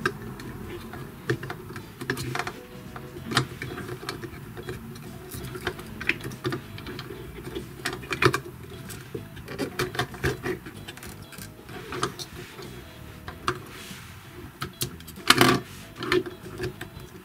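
Small plastic clicks and knocks from a toy dog figure being handled and strapped into a plastic toy sidecar, irregular throughout, with one louder knock near the end.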